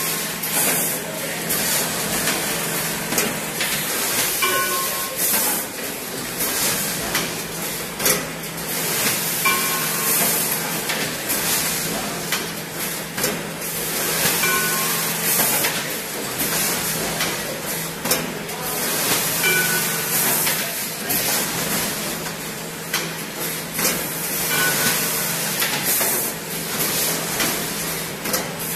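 Automatic bagging machine running: repeated puffs of air hiss and clacks from its bag-handling mechanism over a steady machine hum. Short high tones recur about every five seconds, keeping time with the bag cycle.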